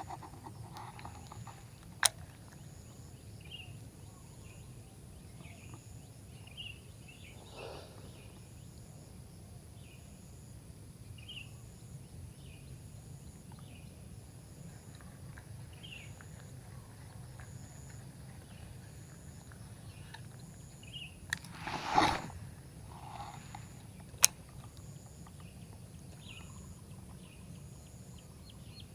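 Outdoor ambience: scattered short bird chirps over a steady low rumble. A louder rushing noise comes about 22 seconds in, with a weaker one near 8 seconds, and there are two sharp clicks.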